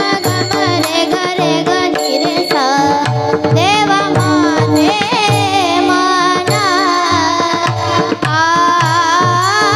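Girls singing a Marathi kirtan melody (chal) in an ornamented, sliding voice over a steady held drone, with tabla keeping a regular beat.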